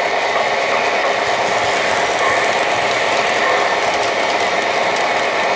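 O-gauge model train running on three-rail track: a steady mechanical clatter of metal wheels and geared motors, with faint rail clicks near the end.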